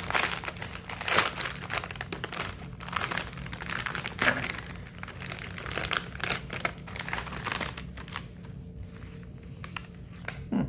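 Foil-lined chip bag crinkling and rustling as it is handled and pulled open, the crackling dying down after about eight seconds.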